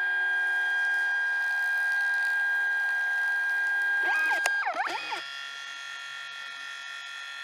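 Synthesized electronic tones: a steady held chord of many tones, broken about four and a half seconds in by quick up-and-down swooping pitch glides, then a quieter held chord.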